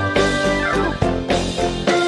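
Upbeat background music with a steady beat and plucked and drum sounds, with a short falling glide about halfway through.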